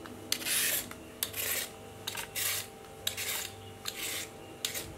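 Y-shaped vegetable peeler scraping the skin off a raw carrot in a series of short strokes, about one a second.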